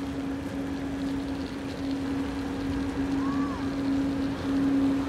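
ÖBB Taurus electric locomotive rolling slowly in, its steady electric hum growing louder as it approaches.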